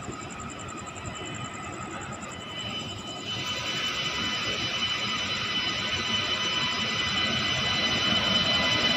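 WAP7 electric locomotive drawing its train out of the station, its running noise growing steadily louder as it approaches. From about three seconds in, several high steady whines rise over the rumble.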